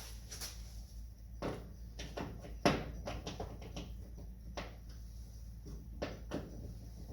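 Irregular light clicks and knocks of hand tools and loose parts being handled while a 1977 Chevrolet C10 truck door is taken apart, with one sharper knock a little under three seconds in.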